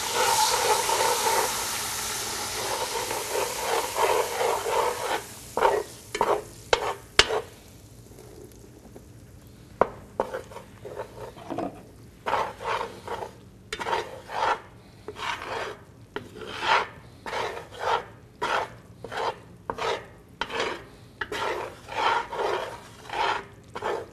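Flour and hot oil sizzling in a cast-iron pot for the first few seconds as the roux is started. Then a long metal spoon stirs and scrapes the bottom of the pot in steady, repeated strokes.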